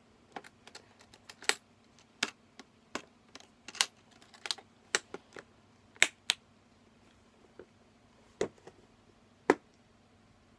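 Metal latches of a small aluminium case being flicked open and shut: a run of sharp, irregular clicks and snaps that thins out in the last few seconds.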